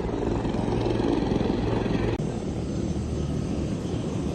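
Aircraft engine running steadily: a constant low drone with a noisy wash over it. There is one sharp click about two seconds in.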